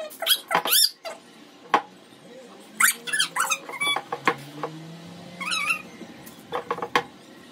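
A pet whining: three short, high-pitched squeaky whines that glide up and down, with a few soft knocks in between.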